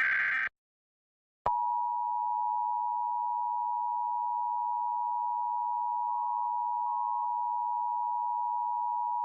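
Emergency Alert System test sequence: the last half-second of a SAME digital header burst, a second of silence, then the EAS two-tone attention signal (853 and 960 Hz sounded together). The tone starts with a click about a second and a half in and holds steady at one level.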